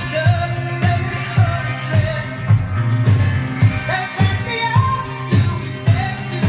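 Rock song with a sung lead vocal over a steady drum beat, played back through a hi-fi integrated amplifier and loudspeakers.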